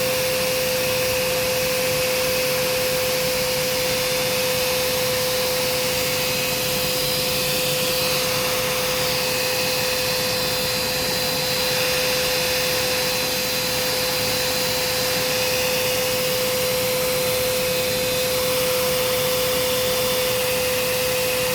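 Cordless 18-volt battery-powered water sprayer running continuously: a steady motor whine over the even hiss of the spray.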